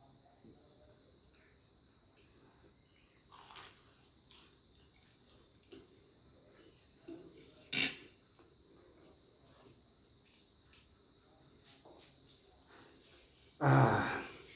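Quiet eating at a table: fingers breaking and handling a samosa on a paper plate, over a steady high-pitched drone like insects. One sharp click comes about eight seconds in, and a short loud voice sound comes near the end.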